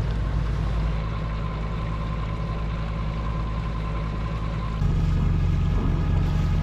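A sailing yacht's inboard engine running steadily at low speed. About five seconds in, it becomes louder with a deeper, fuller hum.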